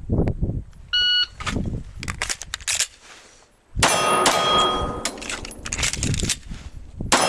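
Shot timer beeps about a second in, then a string of gunshots on a shot-timer drill, with ringing metallic clangs among them.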